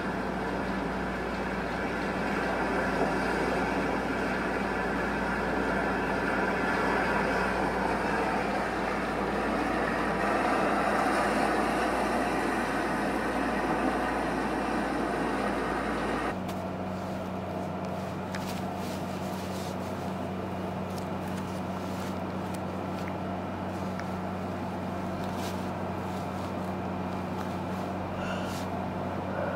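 Steady rushing noise with a low hum. About halfway through it changes abruptly to a quieter steady hum, with a few faint clicks in the second half.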